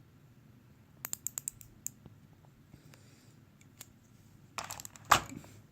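Old quarter-inch drive ratchet clicking as it is worked, a quick run of sharp clicks about a second in, then a few scattered clicks. Near the end, a brief clatter of metal tools in the metal case, with one louder knock.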